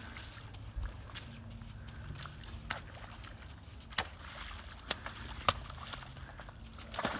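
Friesian horse pawing and stepping in a shallow puddle on a sand arena: scattered splashes and hoof knocks, a few of them sharp, over a faint low hum.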